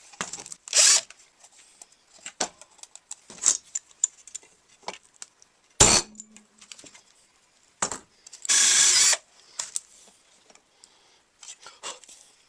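Short bursts of a power drill, one about a second in and a longer one of under a second about nine seconds in, with scattered clicks of tool handling between and a sharp knock about six seconds in.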